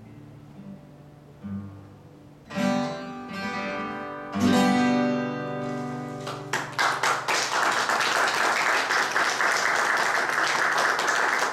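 Steel-string acoustic guitar playing a few soft picked notes, then two strummed chords about two and a half and four and a half seconds in that ring out as the closing chords of the piece. Audience applause starts about six and a half seconds in and keeps going.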